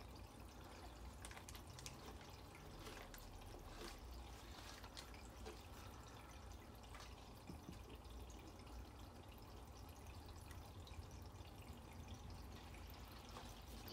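Aquarium filter faintly trickling into the tank water, steady, with a few small drips.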